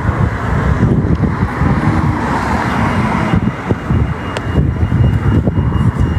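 Wind rumbling and buffeting on a phone's microphone, over street traffic noise that swells and fades about halfway through.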